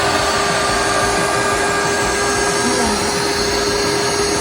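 Electric air pump running steadily with an even hum and whir as it blows up an inflatable pool.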